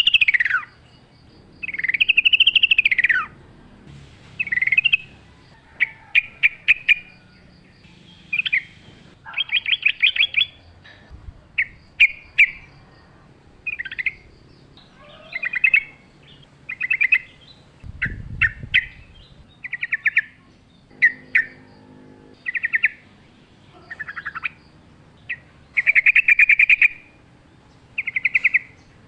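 Yellow-vented bulbul (trucukan) singing: short phrases of quick chattering notes, one every second or so with short pauses between.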